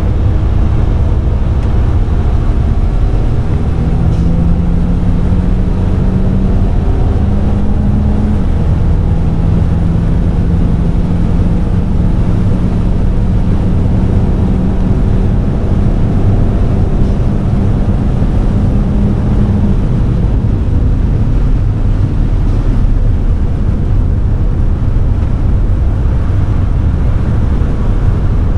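Suzuki Cappuccino's 657 cc turbocharged three-cylinder engine pulling hard on track, heard inside the cabin over a heavy rumble. The engine note climbs slowly, breaks briefly about eight seconds in as it changes gear, carries on, then fades under the steady rumble after about twenty seconds.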